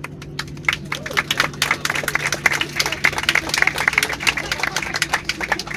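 Airliner passengers clapping in the cabin to applaud the landing: a few scattered claps that swell into steady applause about a second and a half in, over the steady hum of the aircraft.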